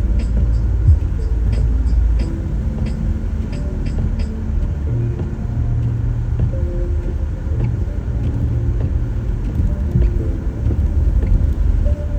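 Low, steady road rumble heard inside a moving car, with quiet music playing over it. The music adds held notes that change every second or so and a light ticking beat during the first few seconds.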